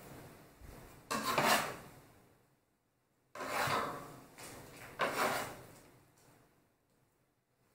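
Metal bench scraper scraping across a wooden cutting board as it works under and folds sticky bread dough. There are three main strokes, each starting sharply and fading, about a second and a half to two seconds apart.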